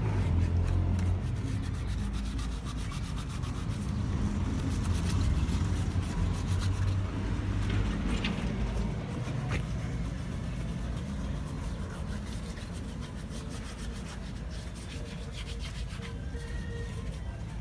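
Sandpaper rubbed back and forth by hand over the spokes of an aluminum wheel rim, a scratchy scrubbing that roughs up the surface so the paint will stick. A steady low rumble runs underneath.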